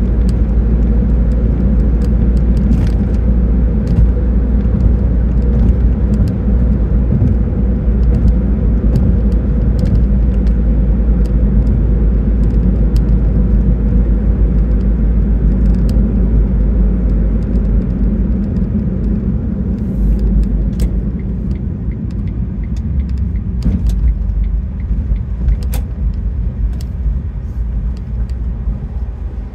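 Vehicle driving along a road: a steady low rumble of engine, tyres and wind, with scattered light ticks. The rumble eases off gradually over the last ten seconds or so.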